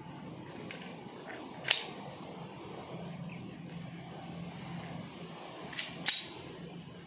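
Two sharp cracks about four seconds apart, the second just after a fainter one, over a steady low hum.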